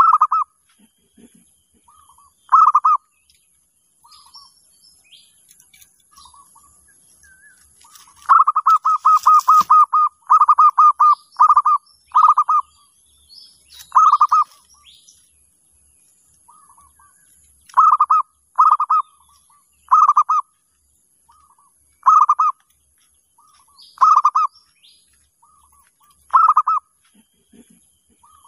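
Zebra dove (perkutut) calling: short bursts of rapid staccato coos, repeated every second or two, with a longer run of them about a third of the way in. Faint chirps of small birds in the background.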